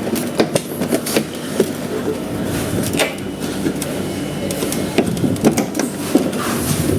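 Plastic body panels of a Uwinfly M100 electric scooter being pried apart by hand: irregular sharp clicks, snaps and creaks from the plastic and its clips, loud enough to startle.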